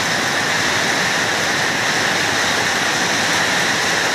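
Heavy rain pouring down steadily, a dense even hiss of drops splashing on a wet tiled floor.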